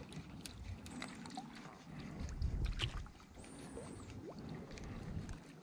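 Faint water lapping with wind noise and a few light clicks; a low rumble swells louder about two seconds in and fades by three.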